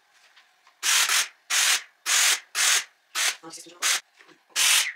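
Steam-generator iron letting off short bursts of steam: a loud hiss in about seven spurts of a third of a second each, starting about a second in.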